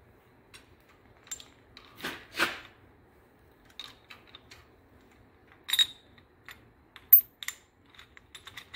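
Irregular light metal clicks and clinks of a shaft-mounted rocker arm assembly and its pushrods being handled and set onto a Chrysler big-block cylinder head. The sharpest click comes a little past seven seconds in.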